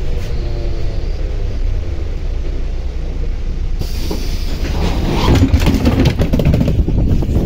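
MAZ-105 city bus standing at a stop with its engine rumbling steadily. About four seconds in, a sudden hiss as the doors open, followed by wind buffeting the microphone and knocking footsteps as the rider steps off.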